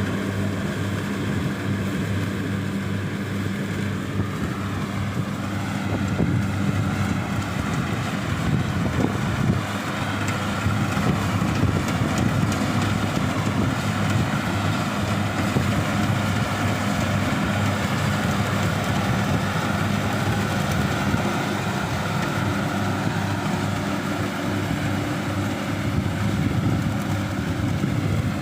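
Kubota DC-60 rice combine harvester running steadily under load, its engine holding a constant low drone with the rattle and hiss of the harvesting machinery over it.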